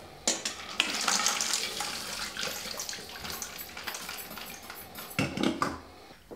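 Carrots, ice cubes and ice water poured from a glass dish into a stainless steel colander in a sink: splashing water with the ice clattering against the metal. The carrots are being strained out of their ice bath.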